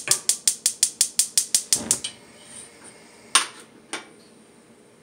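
Gas stove burner's spark igniter clicking rapidly and evenly, about seven clicks a second, stopping about two seconds in when the burner lights. Two single sharp clicks follow a little later.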